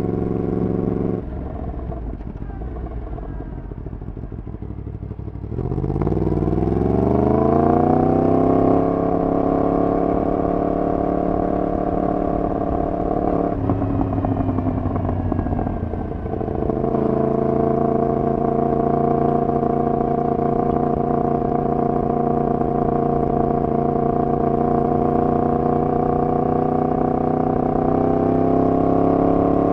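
Yamaha MT-10's crossplane inline-four running through a decat full exhaust system. It holds low revs at first, then about five seconds in the revs climb under acceleration and settle into a steady cruise. The revs dip briefly near the middle and hold steady again, rising slightly at the end.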